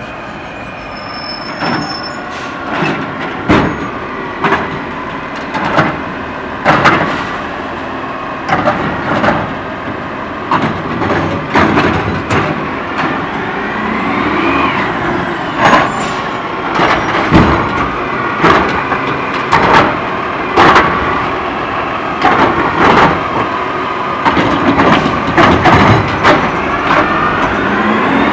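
Autocar ACX garbage truck with a DaDee Scorpion side-loader body, its engine running as it drives up and pulls alongside the carts. Many short sharp sounds come about once a second over the engine, and a brief rising then falling whine comes about halfway through.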